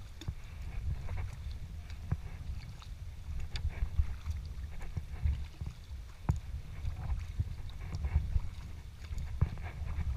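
Sea kayak being paddled: water splashing and dripping from the paddle and against the hull, with irregular sharp ticks over a steady low rumble.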